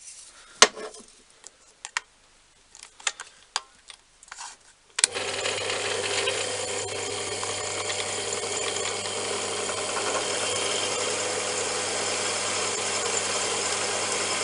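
Small metal clicks and clinks of tools being handled, then an electric drill starts abruptly about five seconds in and runs steadily. It is drilling the 5 mm tapping hole for a 6 mm thread.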